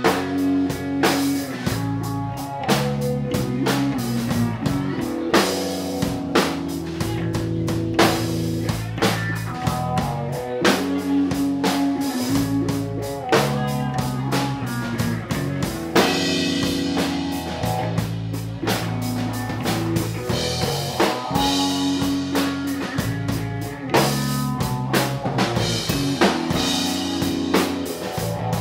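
Live rock band playing electric guitar, electric bass and drum kit to a steady beat.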